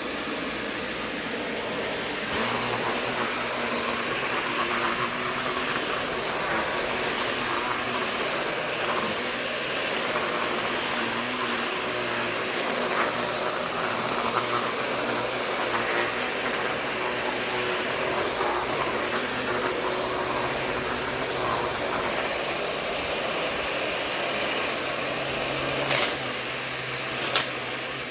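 Shark Navigator Professional NV60 upright vacuum cleaner running steadily as it is worked over a carpet mat, getting a little louder about two seconds in. Two sharp knocks come near the end.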